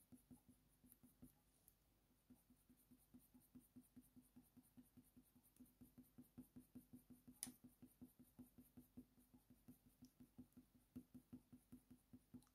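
Faint, quick short strokes of a Faber-Castell Polychromos coloured pencil on thick hot-pressed watercolour paper, a soft scratch about three to four times a second, with one sharper tick about halfway through.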